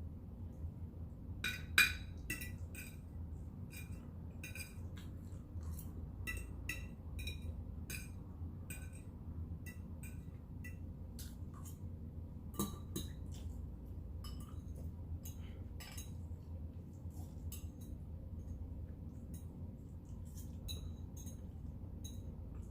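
Cutlery clinking against dishes while eating breakfast: a run of small irregular clicks and clinks, with a sharper clink about two seconds in and another near the middle, over a steady low hum.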